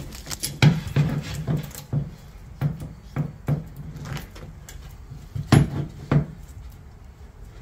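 Irregular metallic clanks and knocks as a large steel C-clamp is handled and set in place: about a dozen sharp strikes, the loudest about five and a half seconds in.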